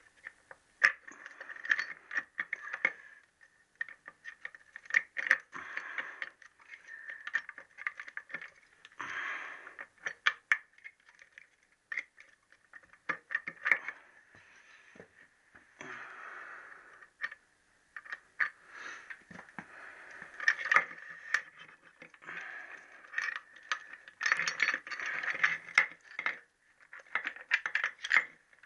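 Irregular metallic clinks, knocks and scraping as the gear cluster and shafts of a Triumph T120R gearbox are worked out of the casing by hand.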